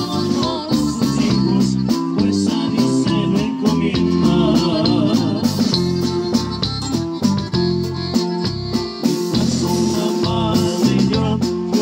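Live norteño band playing a corrido: accordion, acoustic guitar, electric bass and drum kit keeping a steady beat, with vocals.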